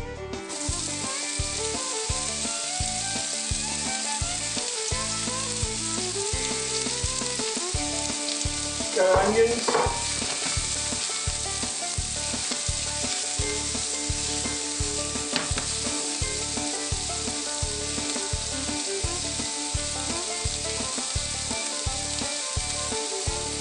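Diced onions frying in hot oil in a nonstick pan: a steady sizzle that starts abruptly about half a second in.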